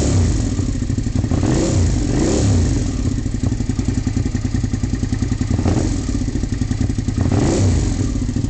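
2002 Suzuki SV650S V-twin breathing through a full M4 exhaust, idling with a pulsing, uneven beat and blipped several times, each blip a short rise and fall in pitch. The bike sputters off beat at idle: a rough idle.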